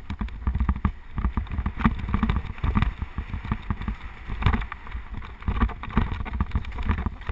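Mountain bike descending a rough dirt trail at speed: the bike rattles and knocks irregularly over bumps, with wind rumbling on the microphone.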